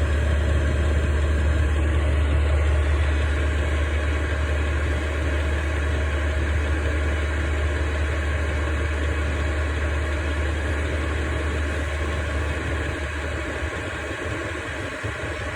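8 kW diesel air heater running with its fan on high speed, giving a steady rush of air over a strong low hum as it comes up to temperature after the glow plug has switched off.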